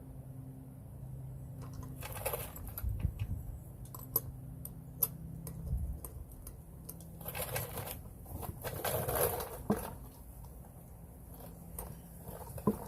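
Scattered clicks and knocks of tools and parts being handled, with stretches of scraping and rustling about two seconds in and again from about seven to ten seconds in.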